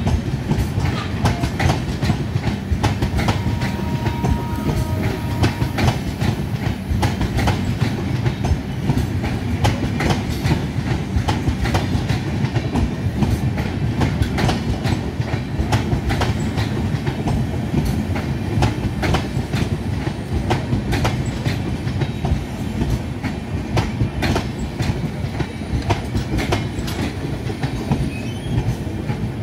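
Indian Railways passenger train coaches rolling past close by: a steady rumble of the bogies with a continuous clickety-clack of wheels over rail joints.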